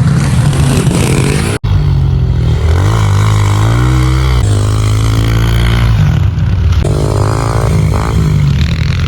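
Pit bike engines revving up and down as the bikes race, with a brief cut-out about a second and a half in.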